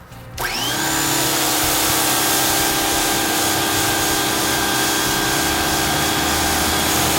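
Ryobi 1800 PSI electric pressure washer spraying through its 15-degree nozzle: its motor and pump spin up with a rising whine about half a second in, then run steadily under the loud hiss of the water jet.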